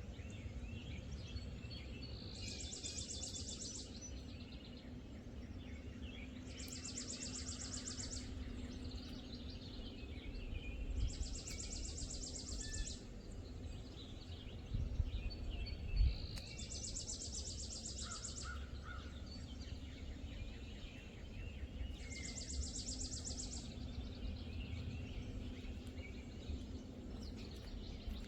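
A songbird singing a high, fast trill, about a second and a half long, repeated roughly every five seconds, with other birds chirping. A steady low rumble lies underneath.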